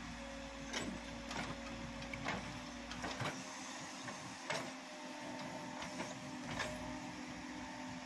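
Escorts backhoe loader's diesel engine running under hydraulic load with a steady whine that changes pitch about halfway through, while the bucket clanks and knocks about six times as it dumps and digs into the heap.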